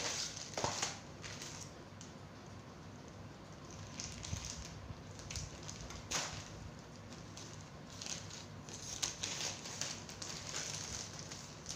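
Thin plastic courier mailer bag crinkling and crackling as it is handled and cut open with scissors, in an irregular run of rustles with a few sharper snips and crackles.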